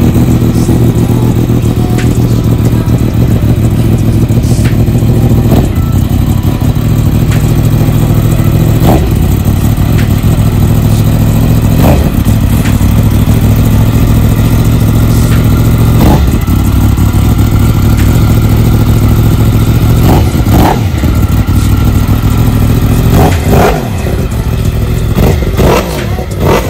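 Yamaha YZF-R1's 998 cc crossplane inline-four, just cold-started, running at a fast idle through an Akrapovic exhaust. The throttle is blipped every few seconds, each blip a quick rise and fall in revs, with the blips coming closer together in the last few seconds.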